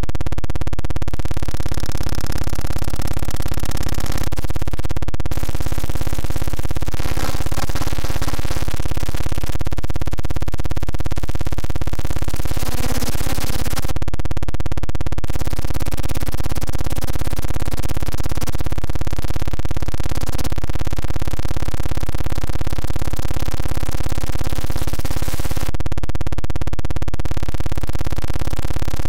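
Synthesized sci-fi noise effect: a loud, dense electronic buzzing drone made of many steady tones, its texture shifting every few seconds.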